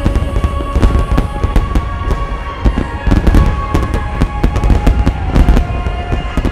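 A massed barrage of firework shells bursting in rapid, overlapping succession, with deep rumbling booms and sharp crackling reports, over sustained music with long held notes.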